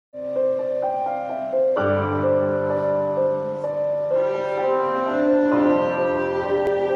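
Electronic keyboard playing an intro of held chords and melody notes, with bass notes coming in about two seconds in and the chords filling out about four seconds in.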